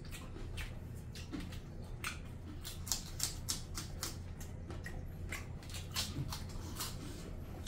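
Mouth sounds of people eating rice and mutton curry by hand: a run of irregular clicks from chewing and lip-smacking, over a low steady hum.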